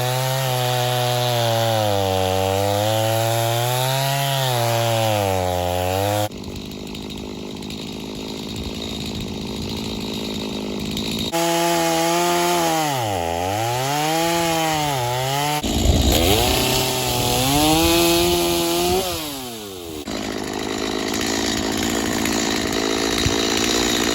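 Gas-powered chainsaw cutting through downed-tree logs. The engine pitch sags and recovers over and over as the chain loads up in the wood, with several abrupt changes between cuts.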